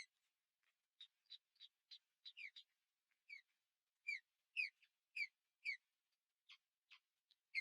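Small birds chirping in short, high calls: a scattering of quick chirps, then, about four seconds in, a run of five louder chirps that each slide downward, about two a second, followed by a few more.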